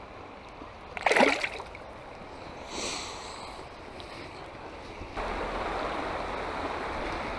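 Flowing creek water, with a short loud splash about a second in and a softer, briefer splash or rustle near three seconds; from about five seconds in the rushing of the riffle becomes louder and steady.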